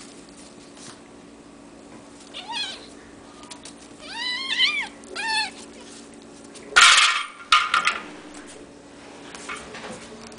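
Hairless Sphynx-type kittens mewing several times, each mew high and rising then falling. About seven seconds in comes a sudden loud scratchy burst of noise, followed by two shorter ones.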